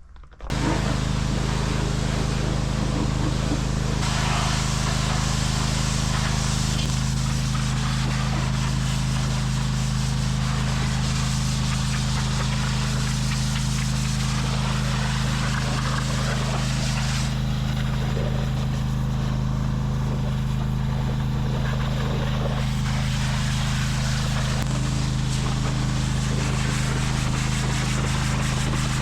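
Pressure washer engine running steadily under a loud, broad spray hiss. The hiss brightens about four seconds in and dulls for a few seconds past the middle.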